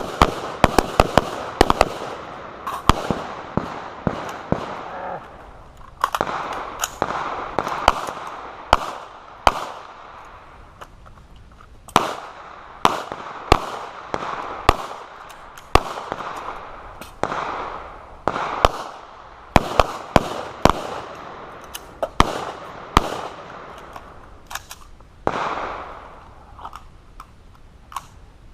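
Several shooters firing carbines and pistols in irregular strings of shots, with short gaps between strings for magazine changes and the carbine-to-pistol transition. Each shot trails a short echo.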